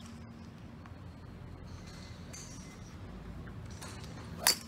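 Golf club striking a ball off a tall chest-high tee near the end: a single sharp click with a brief ringing tail, over a steady low driving-range hum.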